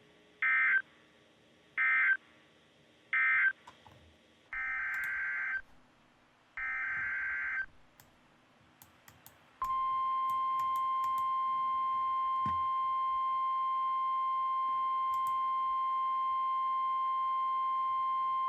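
Emergency alert data bursts: three short warbling SAME bursts (the end-of-message code closing the previous alert), then two longer SAME header bursts. Then, from about ten seconds in, the steady 1050 Hz NOAA Weather Radio warning alarm tone, held for about nine seconds, which announces the next warning.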